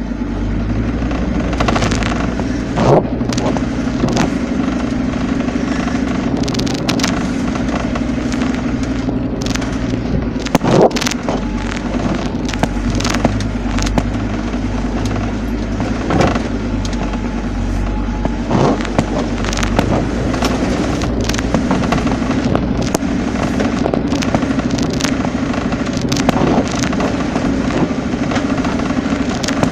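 Motor vehicle engine running steadily while driving over rough ground, with frequent knocks and rattles from the bumps.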